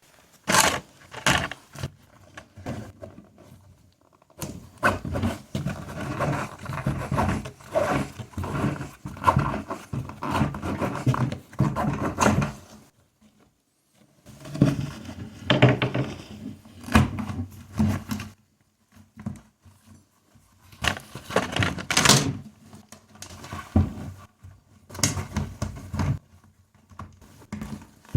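Handwork on a bicycle wheel during a tire swap: rubber rubbing and scraping against the rim, with irregular knocks and clatter from the wheel and tire being handled.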